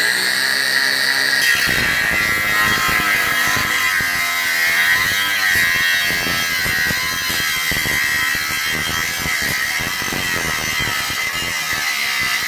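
Cordless angle grinder cutting through a stainless steel exhaust dump pipe: a steady high whine at full speed that turns to a harsher grinding noise about a second and a half in as the disc bites into the metal. It cuts out abruptly at the very end, which the user puts down to its battery going flat.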